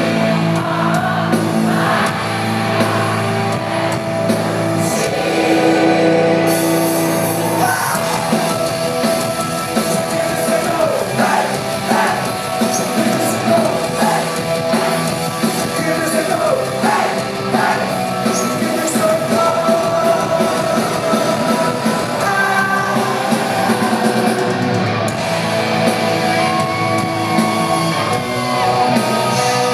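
A live rock band playing a song, with electric guitar and a lead vocal over the full band.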